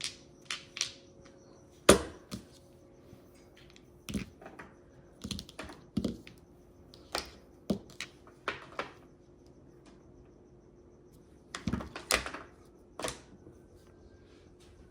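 Mahjong tiles clacking as they are picked up, sorted and set down: irregular sharp clicks, singly and in small clusters, with a pause of about two seconds in the second half.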